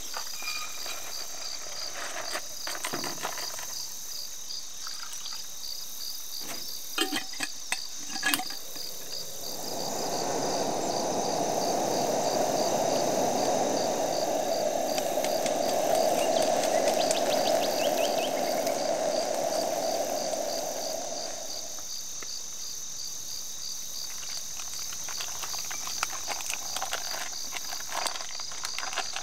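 Crickets chirping in a steady, even, rapid rhythm, with a few sharp clicks near the start. From about ten seconds in, a louder steady rushing noise swells up, holds for about ten seconds, then fades away.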